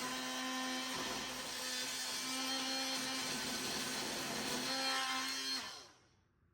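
Electric power-tool motor running steadily at full speed, then switched off about five and a half seconds in, its hum falling in pitch as it winds down.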